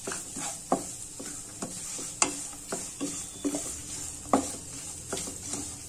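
Wooden spatula stirring and scraping grated dry coconut, cashews and poppy seeds around a nonstick kadai, about two strokes a second, two of them louder about 2 and 4.5 seconds in, over a faint steady sizzle of the mix frying in ghee.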